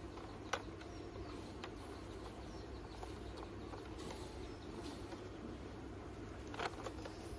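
A plastic toy train being handled and turned over in the hands, giving a few light plastic clicks and knocks, the sharpest about half a second in and a couple more near the end, over a faint steady background hum.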